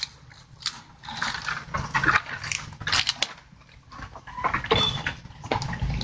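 Irregular crackling and crunching of dry grass and cut fodder in a goat pen's feed trough, a run of sharp rustles and snaps, with a brief thin call near the end.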